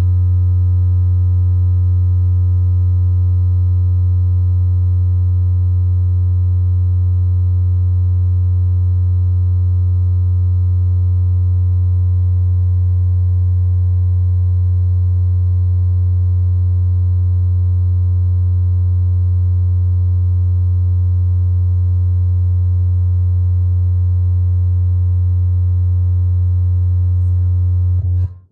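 A Fender bass guitar amplifier, turned face-up, plays one steady, loud, very low bass tone with faint higher overtones. The tone holds a single pitch and cuts off abruptly near the end.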